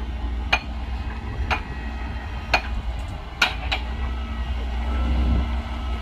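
Heavy dump truck's diesel engine running with a low rumble as it raises its loaded bed to tip out soil, with five sharp knocks over the first four seconds.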